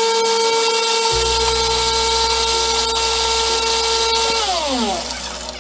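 Homemade mixer grinder, its electric motor spinning a blade inside an aluminium pot to grind dry grain into powder: a steady motor whine over the hiss of the grain. About four and a half seconds in the motor is switched off and winds down, its pitch falling away.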